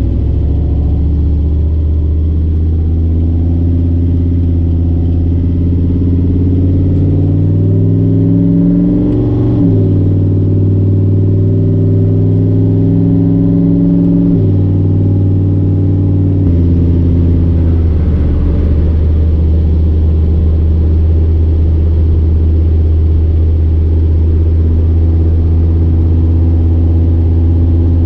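Turbocharged 6.0 LS V8 in a Fox-body Mustang pulling through the gears, heard from inside the car. Its note rises, drops at an upshift about nine seconds in, rises again and drops at another upshift about five seconds later, then settles into a steady cruise.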